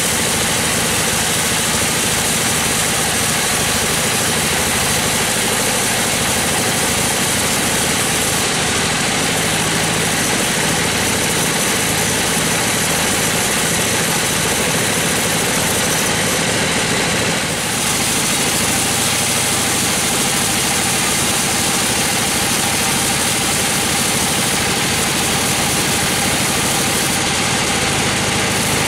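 Sawmill bandsaw running steadily, its band blade ripping lengthwise through a gmelina log. A low, rhythmic throb sits under the dense cutting noise.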